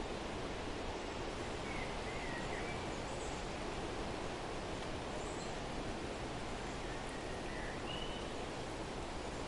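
Steady outdoor noise with a few faint, short bird chirps: a couple around two seconds in, some very high thin notes a little later, and two more near the end.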